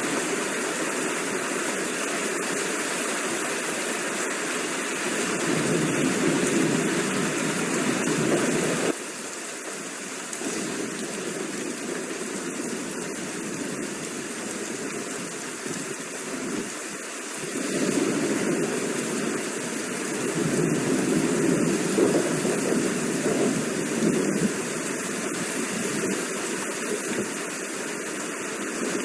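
Steady rain, a dense even hiss, with deeper rolling rumbles of thunder swelling in about five seconds in and again from about eighteen seconds. The sound drops abruptly about nine seconds in.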